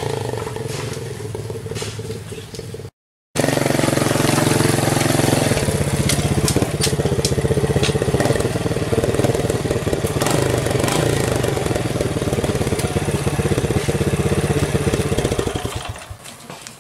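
Small motorcycle engine running with a drink can tied over the exhaust outlet, giving a rapid, rattly exhaust note. The sound cuts out briefly about three seconds in and drops away near the end.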